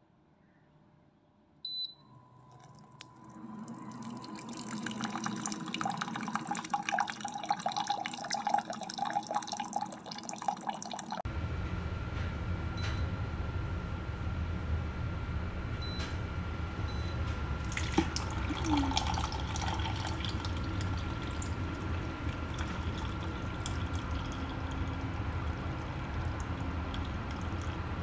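FunHom 3L instant hot water dispenser pouring a stream of hot water into a cup, a single click coming first, about a second and a half in. Partway through the sound changes abruptly to a steadier run of pouring water over a low hum and a thin steady tone from the dispenser.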